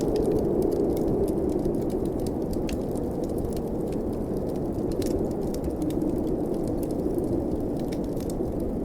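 Blizzard wind as a steady low rush, with a wood fire crackling in small sharp pops over it.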